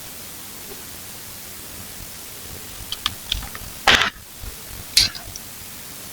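Steady background hiss with a few short sharp clicks a few seconds in, followed by two louder knocks about a second apart.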